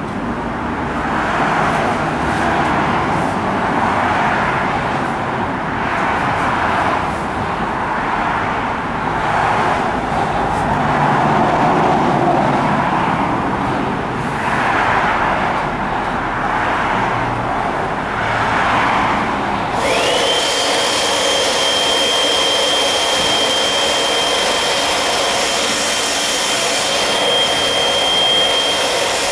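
A rushing noise swells and fades every couple of seconds. About two-thirds of the way in, a handheld electric inflator pump starts up with a whine that rises and then holds steady at a high pitch while it pumps air into an inflatable boat tube.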